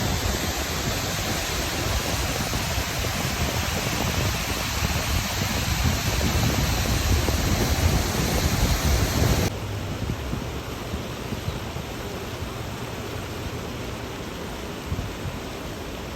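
Great Falls of the Passaic River roaring as one steady, even rush of falling water. About halfway through it drops suddenly to a quieter, duller rush.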